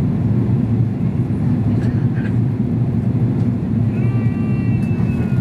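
Steady low roar inside the cabin of an Airbus A330 airliner on descent: engine and airflow noise.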